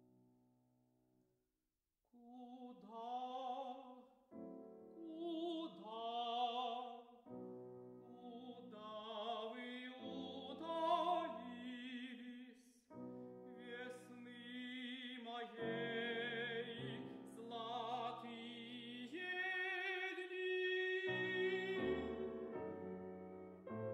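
Operatic tenor singing an aria with piano accompaniment, in long held phrases with vibrato. A piano chord fades first, and the voice comes in about two seconds in after a brief silence.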